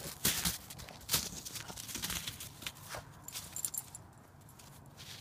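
A golden retriever's paws crunching through deep snow, several steps in the first three seconds and lighter after that. A brief faint jingle comes about three and a half seconds in.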